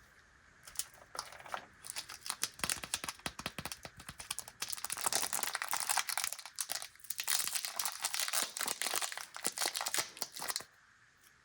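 Plastic candy wrapper crinkling and crackling as it is handled and torn open, close up. It starts about a second in, is densest in the middle and stops shortly before the end.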